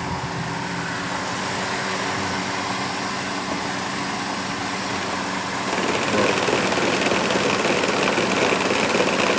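Electric radiator cooling fan of a Mercedes C 180 Kompressor running with the engine idling, a loud steady whir whose noise the owner puts down to play in the fan motor's worn bearing. About six seconds in the fan noise steps up to a louder, higher whooshing whir and stays there.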